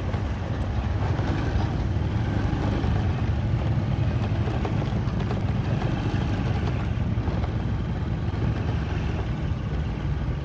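Heavy lorry's diesel engine running steadily at low revs as it moves off slowly, hauling a loaded self-loader lowbed trailer.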